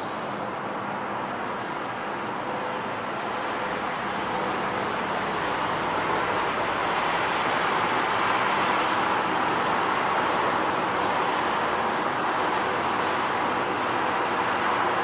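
Distant road traffic: a steady rush of tyre and engine noise that swells about five seconds in and stays louder.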